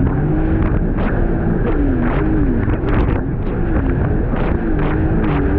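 Jet ski engine running under way. Its pitch dips and climbs back about two seconds in and again near four seconds as the throttle changes. Repeated short knocks and wind on the microphone sit over it.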